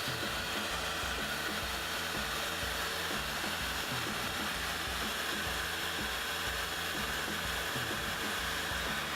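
Industrial wet-filter workshop vacuum cleaner running steadily with an even rushing hiss, over background music with a steady low beat.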